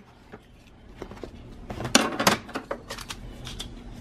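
Crinkling and clicking as stitched fabric and stabilizer are pulled free of a plastic embroidery hoop, with a burst of handling noise about two seconds in and a few lighter clicks after.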